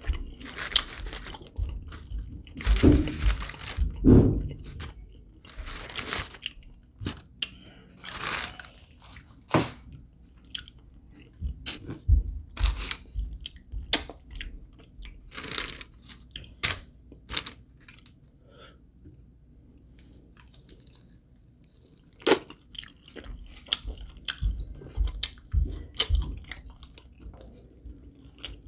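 A person chewing and biting into crispy fried chicken wings, with many short sharp crunches. The loudest bites come a few seconds in, and there is a quieter stretch past the middle before the crunching picks up again.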